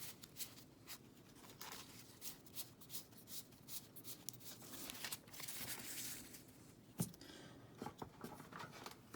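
Pokémon trading cards being handled and flipped through: quick light clicks of card against card, a longer sliding rustle about five to six seconds in, and a sharper tap about seven seconds in.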